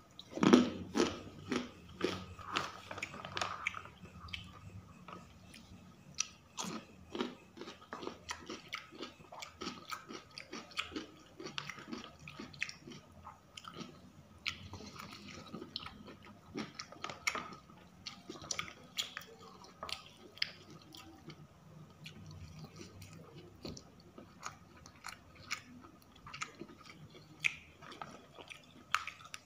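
Close-up chewing and biting of a rice meal of grilled chicken, bakso meatballs and kerupuk crackers, with crisp crunches and small wet clicks, loudest and busiest in the first few seconds.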